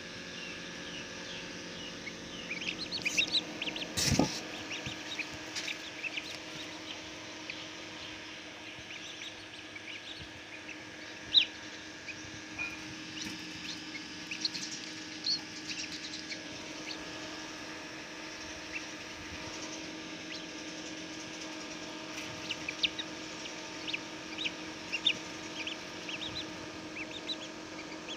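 Chicks peeping in short, high chirps over the steady hum of an incubator, with one sharp knock about four seconds in.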